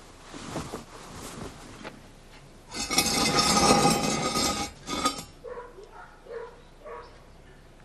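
A steel leg-hold trap clanking and rattling for about two seconds, starting about three seconds in, with a dog whimpering faintly before and after.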